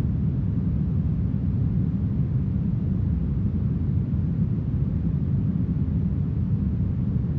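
Steady, smoothed brown noise: an even, deep hiss weighted toward the low end, unchanging in level.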